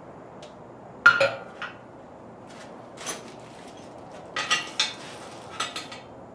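Metal hand tools (ratchet and sockets) clinking and clattering against one another and the aluminium oil pan as they are handled. There are a few separate clanks: the loudest about a second in, another near three seconds, then a quick cluster around four and a half to six seconds.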